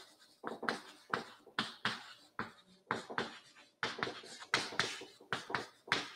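Chalk writing on a chalkboard: an irregular run of sharp taps and short scratchy strokes, about two to three a second, as words are written out.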